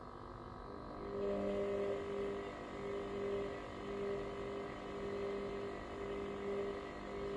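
Hoover washer-dryer running: a motor hum with a low tone and another an octave above it, which starts up about a second in and then swells and dips about once a second.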